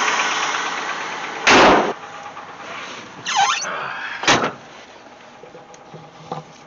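The Jeep Grand Wagoneer's AMC 360 V8 idling, then a loud knock about a second and a half in, a squeaky door hinge squealing a couple of seconds later, and the door slamming shut at about four seconds. After the slam the engine sounds muffled.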